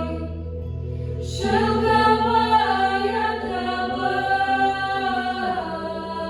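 A vocal ensemble singing long, sustained notes together over a held accompaniment chord. The voices come in about a second in and move to a new chord near the end.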